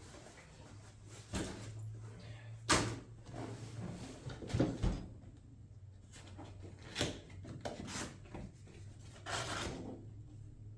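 Handling noise: a series of scattered knocks, clunks and rustles as objects are moved and set down, over a low steady hum.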